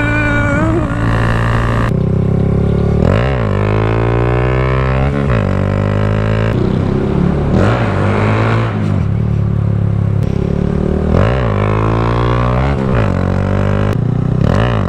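Small single-cylinder motorcycle engine, a Honda Grom 125, running under way. Its pitch drops and climbs back again and again, several times over, as the rider shifts and opens the throttle.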